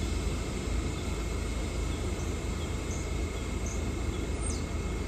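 R68-series subway train standing at the platform with its doors open: a steady low rumble and hiss from the idling train, with a faint steady high-pitched whine. A few faint high chirps sound over it.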